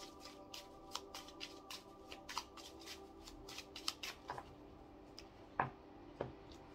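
Deck of oracle cards being shuffled by hand: a quick run of soft card snaps, about three a second, that stops about four and a half seconds in, followed by two louder single card taps as a card is drawn.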